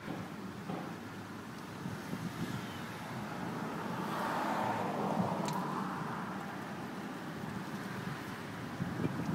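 Gear oil running from the loosened cover of a Ford 7.5-inch rear differential into a drain pan, over a steady outdoor hum of traffic that swells about four seconds in.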